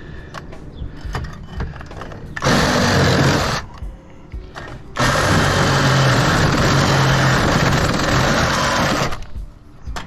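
Handheld power tool running in two bursts, about a second and then about four seconds, with scattered metal clicks and knocks between them as the air-conditioner unit is taken apart.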